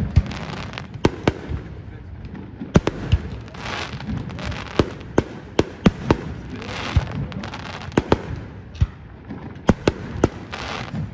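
Fireworks display: about a dozen sharp bangs of aerial shells bursting at irregular intervals, with spells of crackling from glitter (crackling) stars after several of the bursts.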